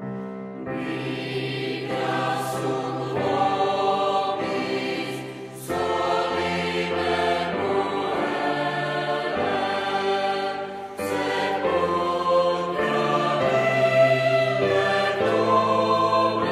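A choir singing slow, sustained chords, entering about a second in after a soft piano note dies away. Sharp 's' consonants stand out a few times.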